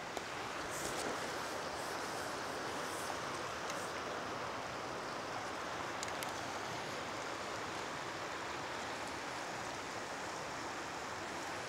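Mountain stream rushing steadily over stones, with a few faint clicks in the first half.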